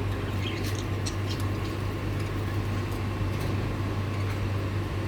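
Lovebirds giving a few short, high-pitched chirps and squeaks over a steady low hum.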